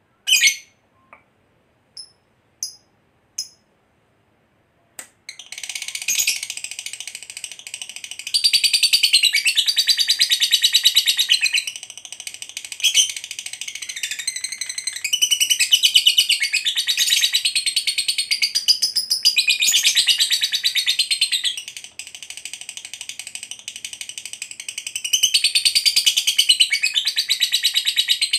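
A lovebird gives a few short, sharp chirps, then about five seconds in breaks into a long, rapid, high-pitched chattering trill that runs on with brief dips. This is the extended 'ngekek panjang' chatter prized in fighter lovebirds.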